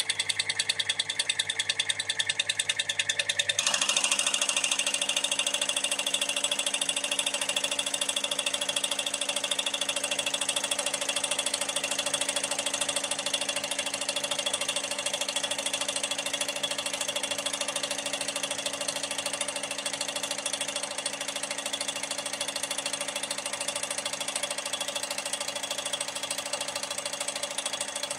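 Cummins PT injector flow test bench running its automatic test: a fast, even mechanical clatter of the injector being cycled, over a steady motor hum. The sound changes to a fuller, brighter note about three and a half seconds in and then runs on steadily.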